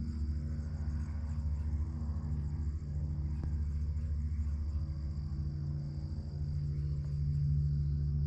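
A steady low engine drone carrying across the water, with a steady high-pitched insect trill over it.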